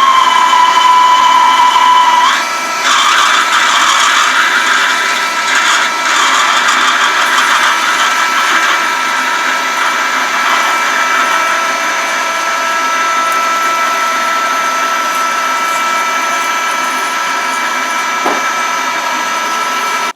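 A shop machine tool running with a steady, loud, high whine. About two seconds in the pitch steps up and rougher cutting noise joins it, and it then runs on steadily.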